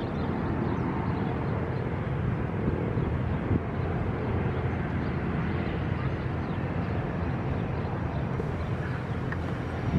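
Twin Pratt & Whitney Canada PW306C turbofans of a Cessna 680 Citation Sovereign running steadily at low power as the jet rolls out and taxis after landing.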